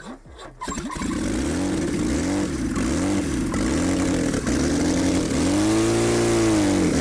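Hoisted car engine, its crankshaft counterweights cut off and its flywheel hacked to unbalance it, catching about a second in and then running unevenly, its revs swelling and dropping over and over with a bigger rise and fall near the end. The engine is hot and overwhelmed and is struggling to keep running.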